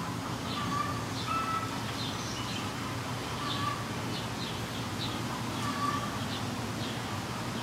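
Birds calling in short, repeated calls about every second or so, over a steady low background hum.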